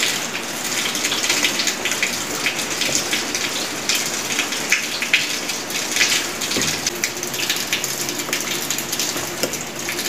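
Heavy rain falling outside: a steady hiss with dense patter and sharp drips of runoff water.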